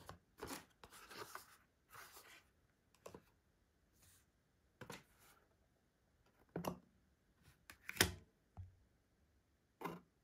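Small cardboard product box being handled on a tabletop: scattered short rustles and scrapes with a few sharp taps, the loudest tap about eight seconds in.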